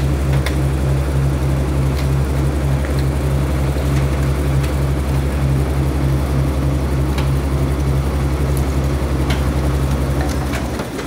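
A crane's engine running steadily under load as it lifts an overturned truck: a deep, even hum with a fast throb. It drops off shortly before the end.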